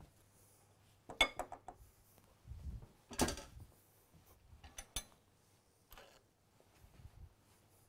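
Kitchen utensils and glass bowls handled on a countertop: a metal whisk lifted out of a glass mixing bowl and tools set down, giving a few scattered clinks and knocks, loudest in two clusters in the first half.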